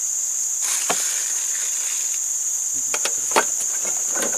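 Steady high-pitched drone of tropical forest insects, with a few light knocks about a second in and around three seconds in.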